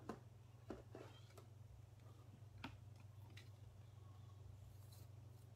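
Faint scattered clicks and taps of trading cards and a rigid plastic card holder being handled, with a soft rustle near the end, over a steady low hum.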